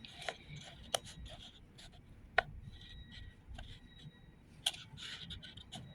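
Hands rustling and pressing damp potting soil around a plant cutting in a pot, with a few sharp clicks and taps.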